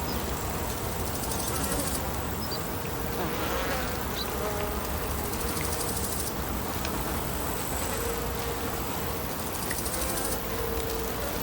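Lakeside ambience: a steady wash of water and wind, with insects buzzing in a wavering drone that comes and goes, and a few faint ticks.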